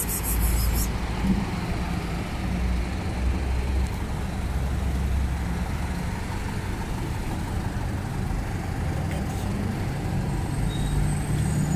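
Steady low rumble of motor-vehicle traffic on the street.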